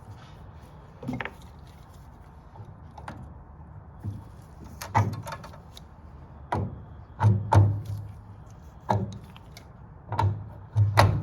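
A series of sharp knocks and clunks, about ten, most of them in the second half, each with a heavy low thud, from parts and tools being handled while working on a gas water heater's valve and burner.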